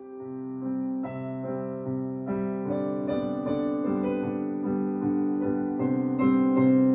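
Music played on a piano or electric piano: gentle held chords and notes that change about twice a second, growing steadily louder.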